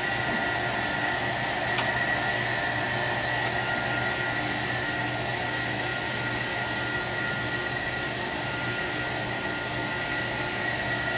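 A hand-held hair dryer running steadily: an even rush of air with a constant high whine.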